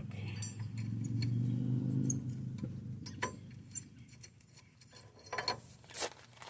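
A few sharp metallic clicks and clinks of the bearing-puller tool's nuts and bolts being handled and fitted onto the wheel hub. A low hum underneath fades out about halfway through.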